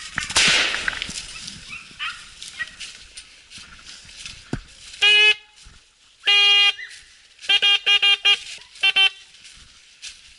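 A single shotgun shot about a quarter second in, ringing away through the woods. From about five seconds in, a hunting horn sounds a string of steady one-note blasts: one short, one longer, a quick run of four short toots, then one more, the kind of horn signal given on a driven hunt.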